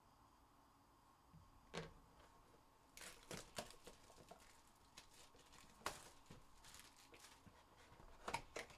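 Faint handling noise of a cardboard 2022 Topps Chrome Formula 1 Sapphire hobby box being handled and opened: scattered taps, scrapes and rustles of fingers on cardboard, bunched about three seconds in, with sharper clicks near six seconds and near the end.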